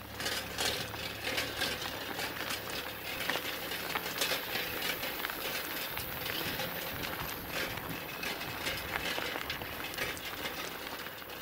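Footsteps crunching on a gravel dirt road, with camera handling and rustle from the walking.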